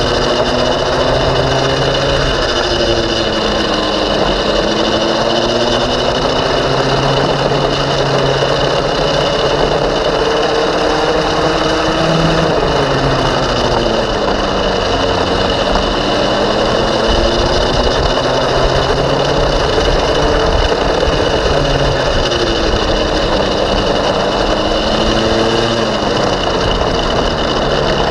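Go-kart engine heard from on board, running under load with its pitch climbing and falling again and again as the kart speeds up along the straights and slows for the turns, over a steady rush of wind noise.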